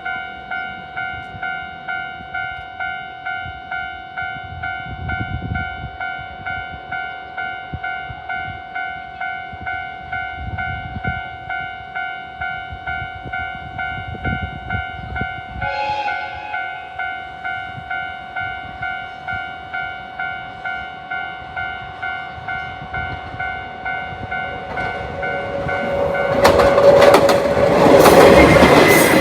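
Japanese railway level-crossing warning bell ringing in a steady, even, repeating ding. From about 25 seconds in, a train comes up and passes over the crossing, growing much louder than the bell.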